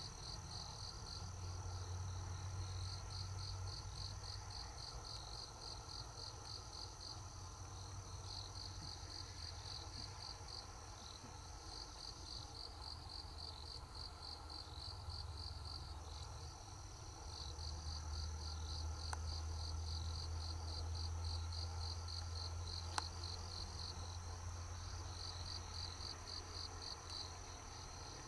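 Insects chirping: a rapid, evenly pulsed high chirping together with a steady high trill that drops out for a few seconds midway. A low rumble comes and goes underneath.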